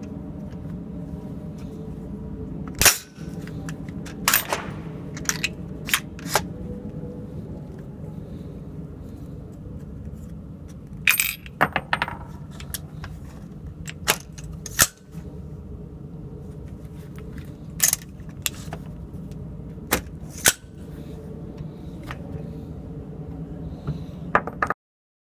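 Irregular sharp metallic clicks and bangs from working the Matrix Aerospace M762 AR-10-pattern rifle, about seventeen in all, some in quick pairs, over a steady low hum.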